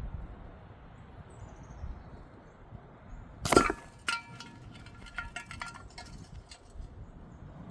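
A single sharp shot from a .22 spring-piston underlever pellet rifle about three and a half seconds in, followed by about three seconds of light metallic clinks and rattles.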